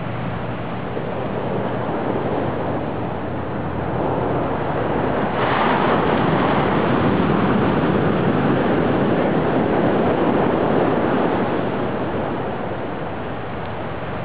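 Ocean surf on a sandy beach: a continuous wash of waves and foam that swells louder about five seconds in as a wave breaks, then eases off near the end.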